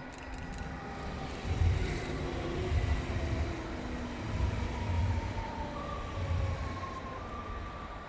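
An electric multiple-unit passenger train passes close by. Low wheel thumps come every second or so as the bogies roll past, over a steady rail rumble, with a faint whine that drops slightly in pitch.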